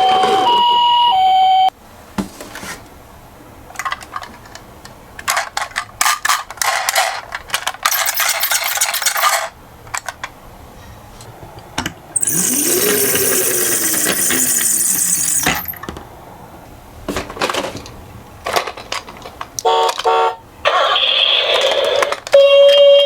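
A two-tone ambulance siren alternating between two pitches stops about two seconds in. It is followed by scattered clicking and clattering of toy minicars running down a slope, with a loud hiss for about three seconds in the middle. Stepped electronic tones begin again near the end.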